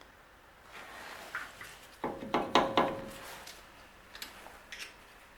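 Metal tools and brake parts being handled: a few sharp knocks about two seconds in, one leaving a brief metallic ring, then a few lighter clicks.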